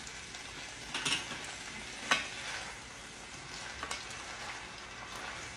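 Spaghetti with pancetta and tomatoes sizzling in a hot skillet as it is tossed with wooden spoons, with a steady hiss and three sharp knocks of the spoons against the pan, the loudest about two seconds in.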